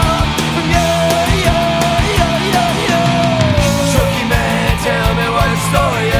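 Rock music with a steady, driving beat and a melody line that bends in pitch.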